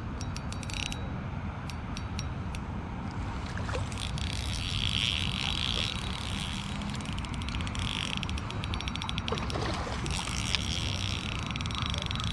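Spinning reel being cranked in three short spells, a fine rapid clicking whir from its gears as the lure is retrieved, with a few sharp clicks near the start. Under it runs a steady low rumble of wind on the microphone.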